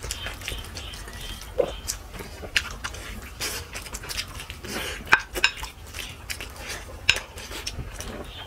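Scattered clicks and clinks of plates and eating, as mutton leg pieces and rice are eaten in a speed-eating challenge.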